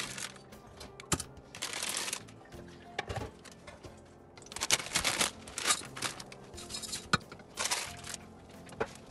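Short bursts of crinkling and crunching from a block of dry instant noodles being handled in a saucepan and stirred with a wooden spoon, with a sharp click about seven seconds in. Quiet background music plays underneath.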